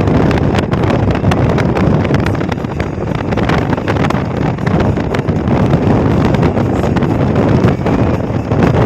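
Wind buffeting the microphone: a loud, uneven rumbling rush that rises and falls in gusts.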